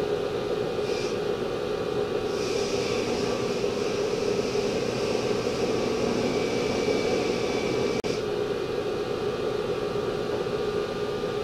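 Wilton belt grinder running while a steel die blank is pressed against the belt: a brief touch about a second in, then about six seconds of steady grinding, after which the belt runs on without contact.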